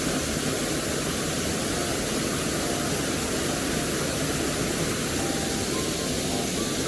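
Steady rushing of a mountain stream, an even unbroken wash of water noise.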